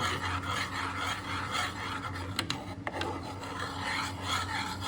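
A spoon scraping round the bottom of a pan in repeated strokes as the ginger and sugar mixture is stirred on the heat, with two short clicks a little past halfway.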